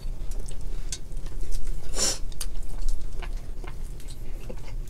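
Cooked crab and lobster shells being cracked and picked apart by hand, giving scattered small clicks and crackles, with a short hissing rustle about two seconds in. A steady low hum runs underneath.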